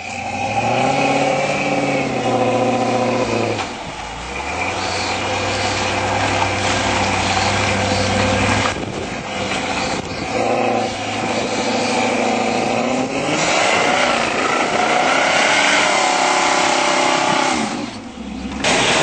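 Engines of modified off-road 4x4s working through mud ruts, revving up and down and holding steady throttle in turns, with abrupt changes where clips are cut together.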